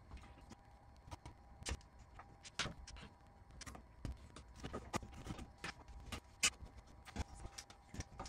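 Irregular small clicks and metallic knocks of pliers and sheet-metal parts while an old fluorescent light fixture is dismantled overhead, over a faint steady hum.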